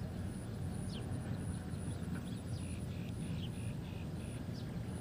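Outdoor ambience: a steady low rumble with faint, quick falling bird chirps scattered through it and a high, pulsing insect trill going on throughout.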